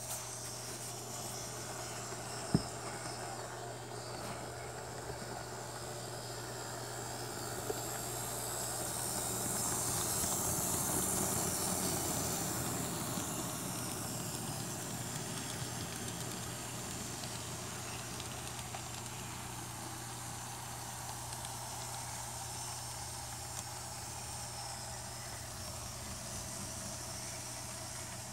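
N scale model freight train running on the layout: a faint steady whir and rolling noise that swells as the locomotive passes close, peaking about ten seconds in, over a constant low hum. One sharp click about two and a half seconds in.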